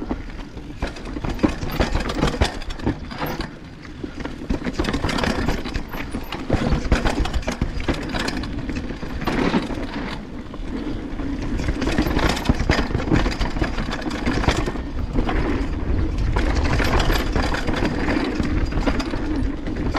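Banshee Legend downhill mountain bike ridden fast over a rough trail: tyres rumbling over the ground and a dense, continuous rattle of the chain slapping. The rattle is a chain that is still clattering despite the rider's attempts to quiet it.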